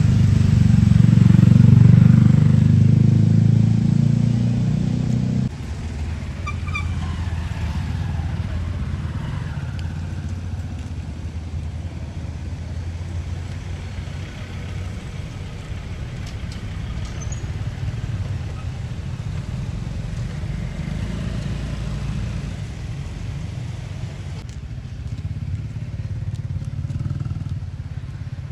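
Steady low rumble of motor-vehicle engines, loudest for the first five seconds and then dropping abruptly to a quieter continuous rumble.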